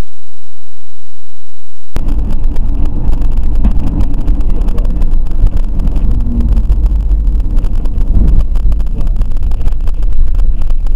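Car in-cabin road and wind noise picked up by a dashcam microphone at highway speed: a heavy low rumble with buffeting, starting about two seconds in.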